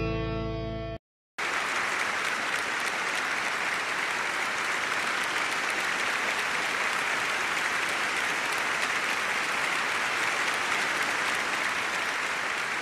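A held musical note fades for about a second and cuts off suddenly; after a brief gap, a large audience applauds steadily.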